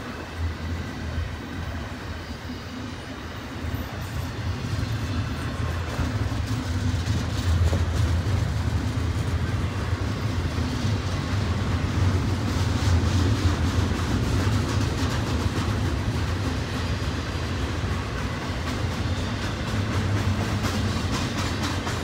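Double-stack intermodal well cars rolling past: a steady rumble of steel wheels on rail with scattered faint clicks, growing louder a few seconds in.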